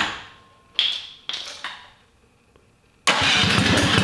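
A Tillotson 212 small engine, built with a Hot265 cam and fitted with a side-exit header and RLV muffler, is being started on its electric starter. A burst of engine noise dies away at the start and two short bursts follow about a second in. About three seconds in it fires up loudly again and keeps going, still not running cleanly: it is close to catching.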